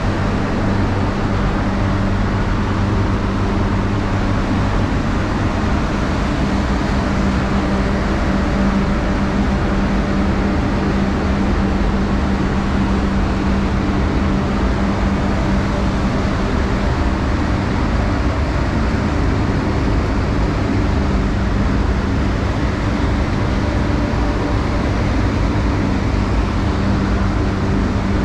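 Steady drone of a paint spray booth's air fans running, with a constant low hum underneath.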